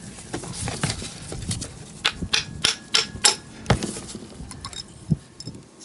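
Sharp clicks and light knocks of small carburetor parts being handled and tapped on a workbench during disassembly, about a dozen of them, most thickly in the middle of the stretch.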